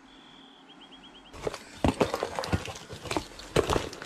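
Paper packing, newsprint, crinkling and rustling in a series of sharp crackles as a parcel is unwrapped, starting about a second in. Before that a bird chirps faintly outside: one held note, then a quick run of short repeated notes.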